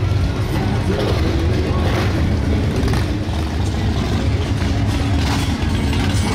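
Motorcycle engines running with a steady low rumble.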